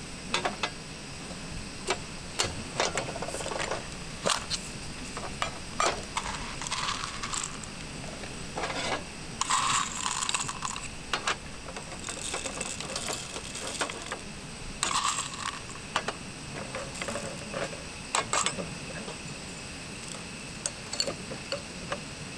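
Irregular clicks, knocks and short light metallic clinks of gear being handled, spread through the whole stretch, with the brightest clinks about nine to eleven seconds in and again around fifteen seconds.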